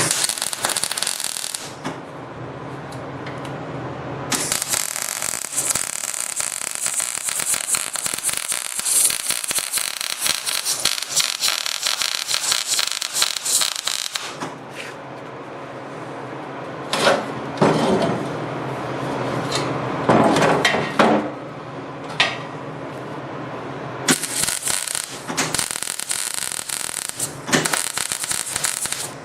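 Welding arc crackling steadily in two long runs of several seconds each, laying beads on steel pipe with the welder turned down to avoid burning through. Between the runs come a few loud knocks and scrapes of metal on metal.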